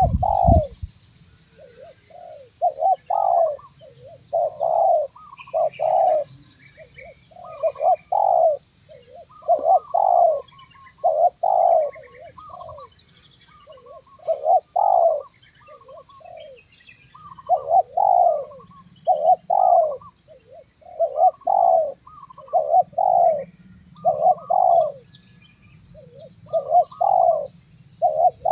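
Spotted doves cooing over and over, short phrases of a few notes following one another with brief gaps, with faint small-bird chirps higher up. A brief low rumble comes at the very start.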